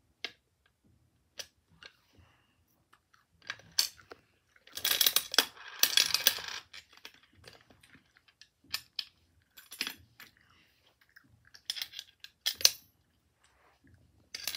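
Pennies clinking as they are fed into a small plastic toy gumball machine, with scattered sharp clicks and a denser stretch of rattling about five seconds in.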